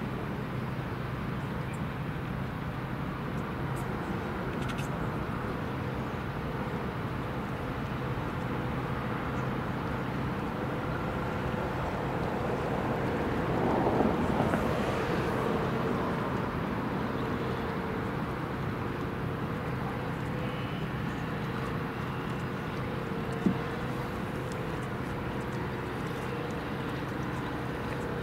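Motorboat engine running steadily, with the noise swelling and fading about halfway through and one sharp click near the end.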